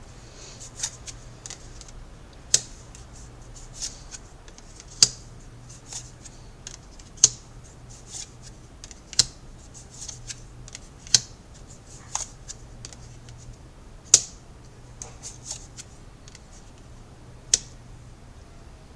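Tarot cards being handled: sharp card snaps every two seconds or so, about eight loud ones, with softer rustling and flicking of cards in between.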